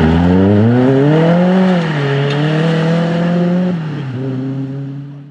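Citroën C2 rally car's engine accelerating hard away, its pitch climbing, then dropping at an upshift about two seconds in and again about four seconds in, growing quieter as the car pulls off.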